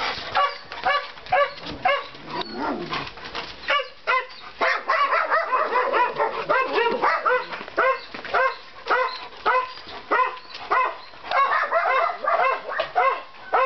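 Newfoundland dog barking over and over in play, about two short barks a second with hardly a break.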